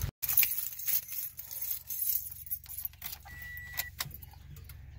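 Car keys jangling with scattered clicks at the steering column, and a short high beep about three and a half seconds in.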